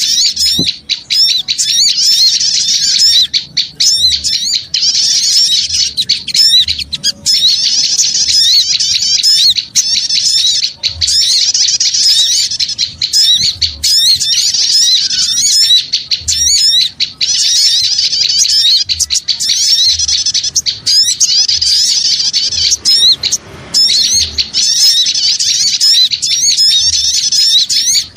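A crowd of small birds chattering all together: a dense, loud, unbroken mass of rapid high chirps and trills. It is a lure recording of noisy small birds, played to draw wild birds in.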